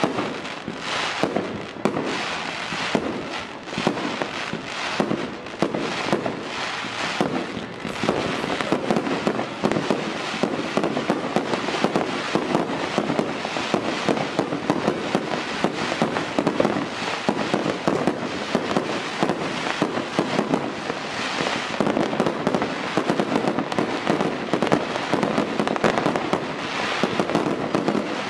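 Massed New Year's Eve rockets and firecrackers going off all over a city at once: a dense, unbroken crackle of overlapping bangs.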